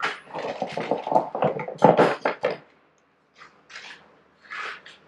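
Small hard parts clattering and clicking as they are rummaged through by hand, dense for about two and a half seconds, then a pause and a few fainter clicks of handling.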